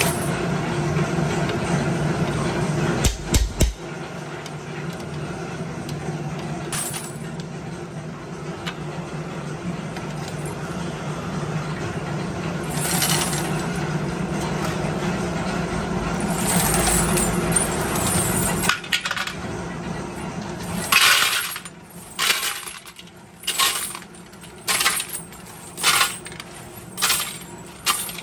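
A motor-driven steel drum loaded with washers runs with a steady low hum, with a loud clank about three seconds in, and stops about two-thirds of the way through. Loose steel washers then clink in short bursts, about one a second, as they are scooped out of the drum by hand.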